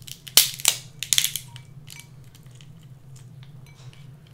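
King crab shell cracking as it is broken apart by hand. There are a few loud, sharp cracks in the first second and a half, then small crackles and clicks as the pieces are picked apart.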